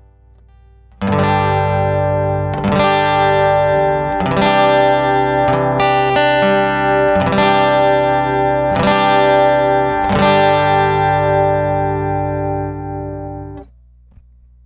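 Acoustic guitar strummed through a Cube Baby AC amplifier: a chord struck about every one and a half seconds, each left ringing, for roughly a dozen seconds, then damped short near the end.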